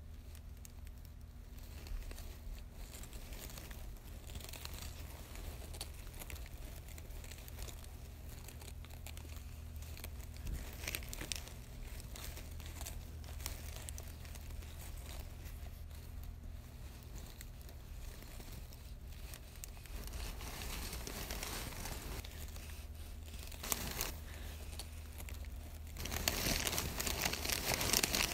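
Irregular crinkling and rustling noise, getting louder near the end, over a steady low hum.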